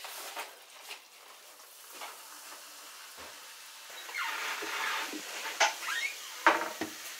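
Fizzy carbonated water poured from a SodaStream bottle into a glass of fruit purée, hissing and foaming for about a second, followed by a few sharp knocks of the bottle and glass on the wooden counter, one near the end louder than the rest.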